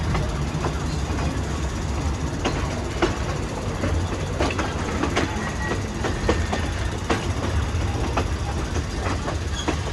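Train running along the rails: a steady low rumble with irregular clicks and clatter from the wheels on the track.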